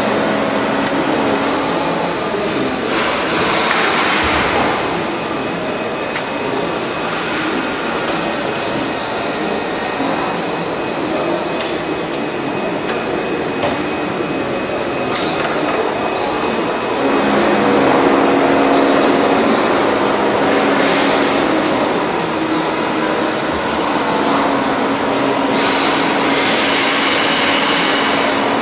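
Jorns decoiler's electric drive motor running the coil mandrel: a steady machine noise with a hum and a high whine. The hum comes up louder a little over halfway through.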